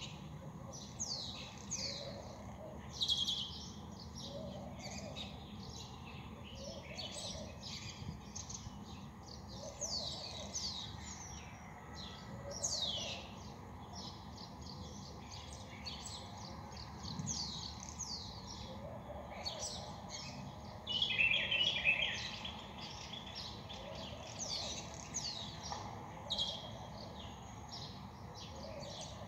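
Many small birds chirping at once, a stream of quick falling notes overlapping throughout, with a louder burst of chatter about twenty-one seconds in.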